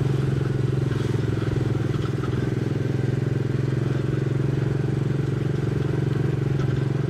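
Small gasoline engine of a Tomorrowland Speedway ride car running at a steady cruising speed: an even, unchanging engine drone.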